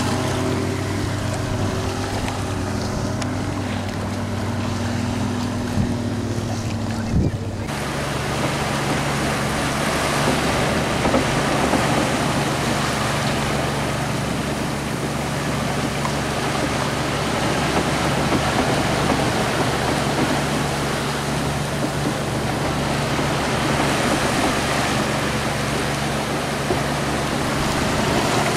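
Boat engine running steadily under way, over the rushing wash of the wake and wind on the microphone. About seven and a half seconds in, the engine note drops to a lower, simpler hum and the water wash gets louder.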